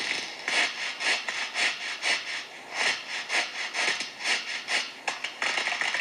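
Fawn-breasted bowerbird mimicking a saw: rhythmic rasping sawing strokes, about two to three a second, copied from a construction site.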